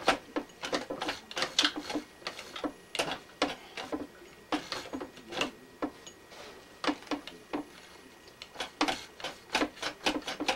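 Domestic sewing machine stitching slowly through heavy, multi-layer fabric: a run of irregular mechanical clacks, about two or three a second, one per stitch, thinning out in the middle as the machine labours through the thick layers.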